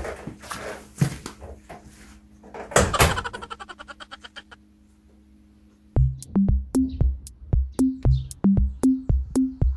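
A few knocks and clicks in the first three seconds, followed by a fast fading ticking. About six seconds in, background music starts: a drum-machine beat with a bouncing bass line.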